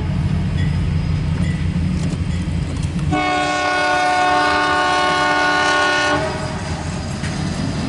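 Diesel locomotive of a CSX freight train rumbling, then its air horn sounds one long chord of several notes for about three seconds, starting about three seconds in.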